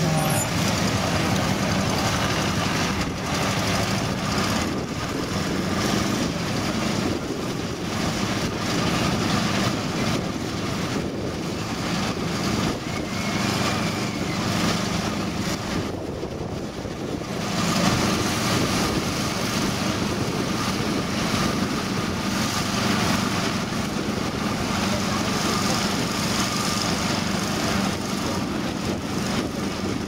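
Vintage combine harvesters running steadily as they work, their engines and threshing machinery giving a constant mechanical clatter and hum. The sound dips briefly just past halfway, then comes back up.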